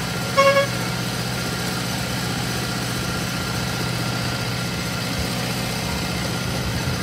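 Miniature-railway diesel locomotive running steadily as it hauls the train, a continuous low engine drone. A brief high-pitched sound cuts in about half a second in.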